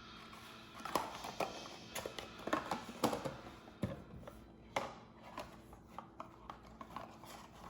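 Hands handling small vinyl toy figures and their packaging: scattered clicks, taps and rustles.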